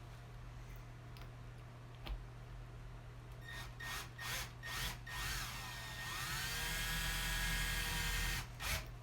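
Power drill started in several short bursts, then run steadily for about three seconds and stopped, with one more brief burst near the end. It is drilling a small hole in a bearing's side shield to pry the shield off.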